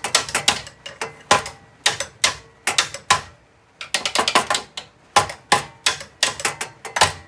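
Sharp metal clicks and knocks from hand tools at work on a seized small engine's crankshaft, a few a second and now and then in quick clusters.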